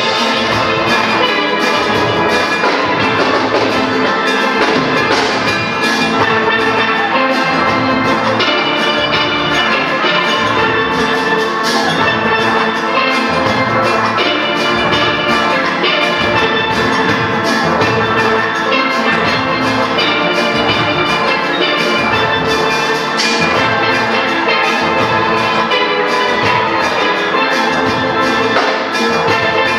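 A steel band playing live: many steelpans, from high lead pans to deep bass pans, ringing together in a tune with a steady rhythmic beat.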